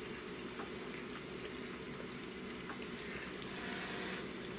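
Steady, faint sizzling hiss of hot food: roasted cauliflower just out of the oven and cheese sauce heating on the stove.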